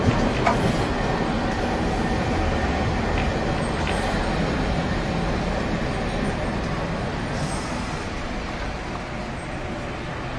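Running noise inside a Nagasaki Electric Tramway streetcar as it rolls along street-running rails, with a couple of sharp clicks right at the start. The noise grows a little quieter toward the end.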